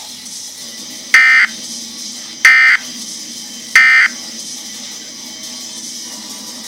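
Three short bursts of Emergency Alert System digital data tones, a harsh buzzing screech evenly spaced about a second and a half apart, with a faint low hum between them.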